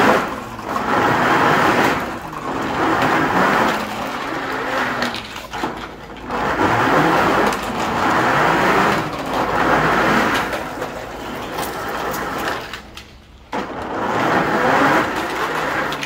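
Plastic toy trucks rolling down a corrugated metal sheet, their wheels rattling over the ridges. This comes in several runs of one to two seconds each, with a short lull late on.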